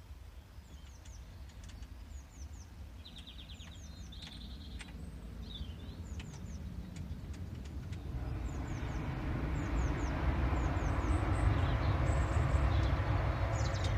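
Small birds chirping repeatedly, with a low rumbling noise that swells steadily louder over the second half and becomes the loudest sound.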